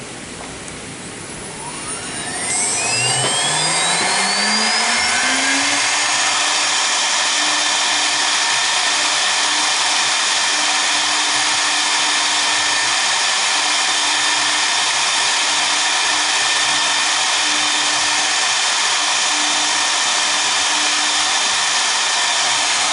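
Two spindle motors of a double-spindle CNC router spinning up with a rising whine over about four seconds, then running at a steady high whine with a hiss as their V-bits engrave the board.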